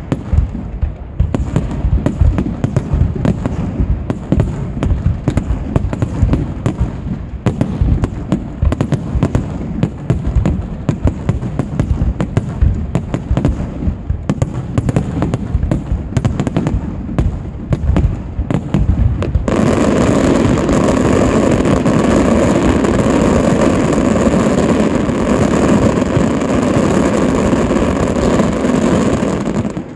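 Professional aerial fireworks display: a rapid, dense barrage of shell bursts and bangs. About two-thirds of the way through, the bangs merge into one continuous loud din.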